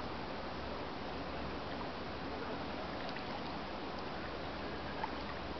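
Steady wash of water lapping, with a low rumble underneath and a few faint ticks.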